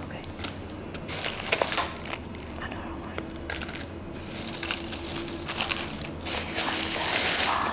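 Thin plastic crinkling and rustling in irregular bursts as a hand rummages through a plastic bag of packaged stationery, loudest near the end.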